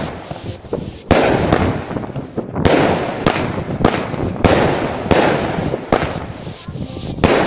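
Consumer firework battery firing shot after shot, about two sharp bangs a second, with a continuous rush of noise between them.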